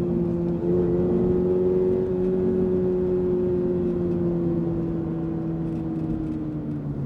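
Toyota GR86's 2.4-litre boxer four-cylinder engine running at fairly high revs, its note holding nearly steady and slowly sinking in pitch as the revs ease off.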